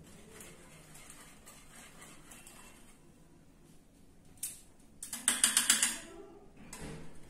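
Wire whisk beating a mixture in a bowl. It stirs faintly at first, then goes into a fast, loud run of clicking strokes about five seconds in for roughly a second.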